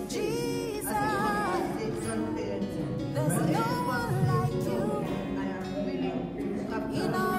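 Voices singing a song with instrumental accompaniment, the sung notes long and wavering.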